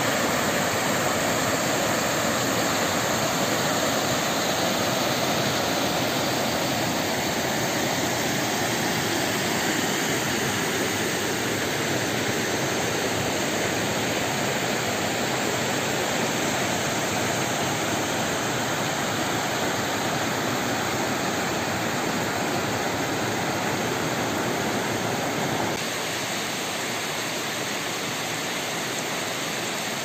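Mumlava Waterfall's water rushing steadily over rock cascades into a pool, a little quieter near the end.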